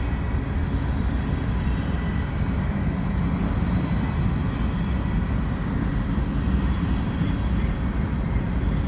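Freight cars of a mixed freight train rolling slowly past on the rails, a steady low rumble with a faint thin ringing from the wheels.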